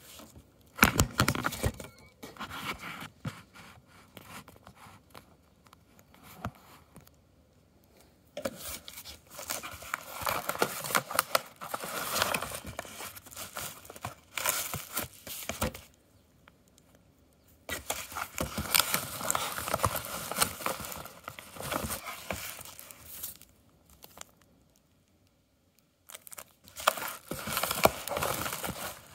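Padded paper bubble mailer being handled and opened: bursts of paper rustling, crinkling and tearing, broken by several pauses of a second or two.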